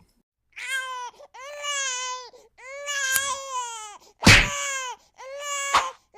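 Crying sound effect: a wailing, baby-like cry repeated five times, each under about a second and a half and steady in pitch. A sharp click about four seconds in is the loudest sound, with a smaller click near the end.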